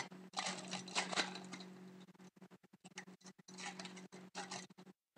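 Foil wrapper of a Rookie Anthology hockey card pack crinkling and tearing as it is opened and the cards are pulled out, in two spells of rustling over a steady low hum.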